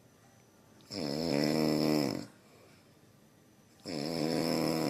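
Rhinoceros snoring: two long, pitched snores about three seconds apart, each lasting over a second, with quiet between them.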